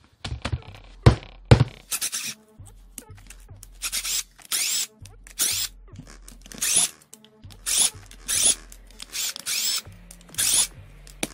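A screwdriver backing out the housing screws of a Bosch GDX 18V-EC impact driver, in a run of short scraping squeaks about once a second, after two sharp knocks about a second in. Background music with a steady bass line plays under it.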